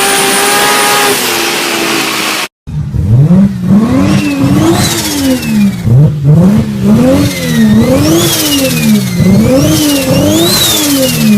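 Nissan Skyline GT-R's turbocharged RB straight-six holds a steady high note with a faint whine, easing slightly after about a second. After a brief dropout about two and a half seconds in, the engine is blipped again and again, roughly once a second. Each rev rises and falls quickly, and a turbo whistle climbs with it and trails off slowly.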